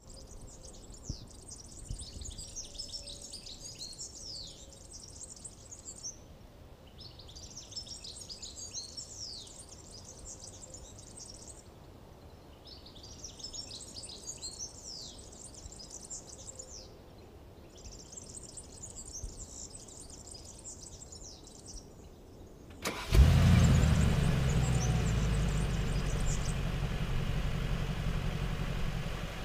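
A bird sings in four phrases of a few seconds each over faint background noise. About 23 seconds in, the Mercedes-AMG G 63's 4.0-litre twin-turbo V8 starts with a sudden loud flare of revs, then runs at a fast idle that slowly quietens.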